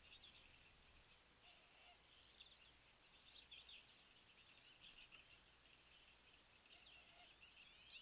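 Small songbirds chirping and twittering faintly, almost without pause.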